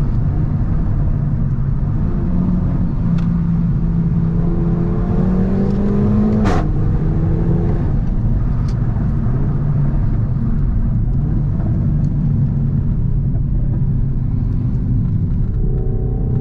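Renault Megane 4 RS 280's 1.8-litre turbo four-cylinder, with a catless exhaust, pulling under acceleration. The engine note climbs in pitch for a few seconds; about six and a half seconds in a single sharp crack comes with the upshift, and the pitch drops and settles. Near the end it starts climbing again.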